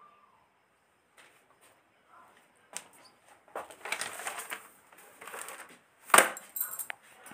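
Handling noises: scattered clicks and rustling that grow louder about three and a half seconds in, with one sharp knock about six seconds in.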